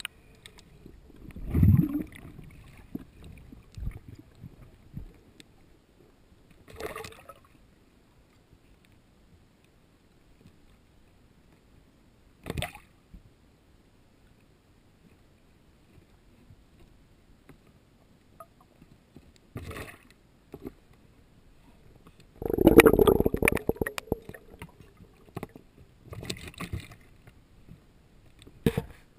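Underwater sounds of a freediver working among submerged branches around a speared fish: scattered muffled knocks and rushes of bubbles. About 23 seconds in comes a longer, louder stretch of bubbling with rapid clicks.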